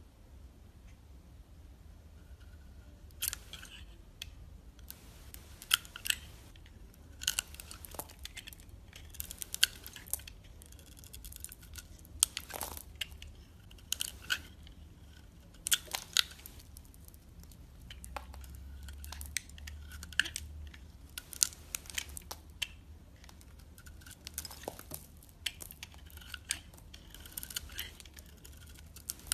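A knife cutting into a bar of soap: a series of crisp, crackly crunching cuts that begin about three seconds in and recur irregularly, over a steady low hum.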